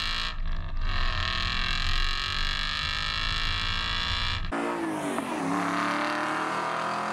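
Car engines revving. About two-thirds of the way in there is a hard cut from one engine, with a heavy low rumble, to another whose revs fall and then settle.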